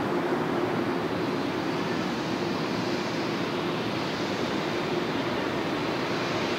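Boeing 787-9 jet engines running at taxi idle, a steady rush with a faint underlying hum, heard at a distance.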